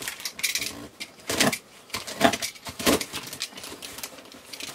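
A crumpled cardboard shipping box being handled and shifted on a table: a run of short scraping and knocking cardboard noises, loudest in the first three seconds, then quieter handling.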